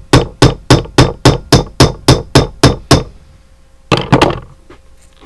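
Small hammer striking a copper rivet on a small anvil: a fast, even run of about a dozen sharp blows, roughly four a second, then after a short pause a quick cluster of three more. The blows are peening the rivet's end over a washer so that it mushrooms and holds the leather strap.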